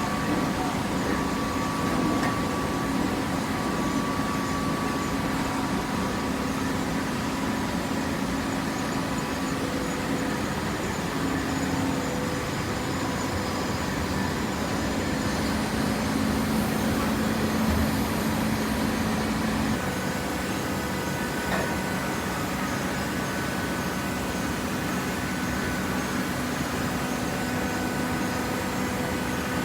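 Hydraulic waste-paper baler running: the steady hum of its motor and hydraulic pump, whose tone shifts about twenty seconds in.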